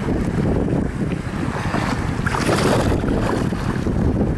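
Wind buffeting the deck-mounted camera's microphone, with choppy water splashing and lapping against the sea kayak's hull.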